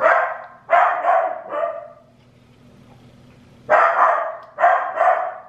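Pet dog barking indoors: about three barks in the first second and a half, a pause, then three more near the end.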